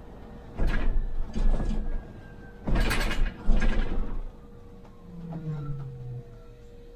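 Mechanical noises aboard a MAN Lion's City hybrid city bus: four loud bursts in two pairs, then a softer low hum about five seconds in.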